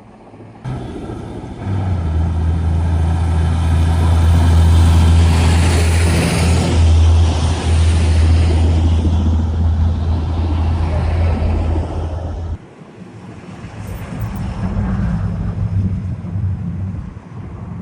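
A heavy vehicle's engine running close by with a steady low hum, cut off abruptly about twelve seconds in, after which a quieter rumble continues.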